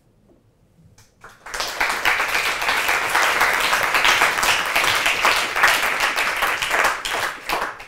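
Audience applauding: a few scattered claps about a second in, then full applause from about a second and a half that dies away near the end.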